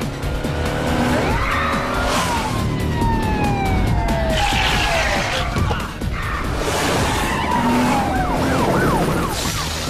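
Animated action-scene sound effects over music: several falling sweeping tones and a quick wavering tone near the end, over dense clatter and a steady low rumble.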